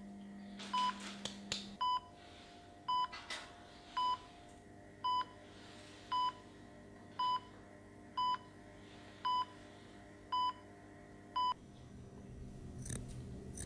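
Patient heart monitor beeping steadily, one short high beep about every second, like a resting pulse. The beeping stops near the end as music starts to rise.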